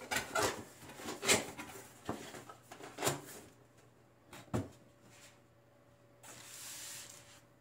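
Cardboard box and foam packaging being handled and moved on a tabletop: a series of short knocks and scrapes over the first few seconds, then a soft rustling hiss near the end.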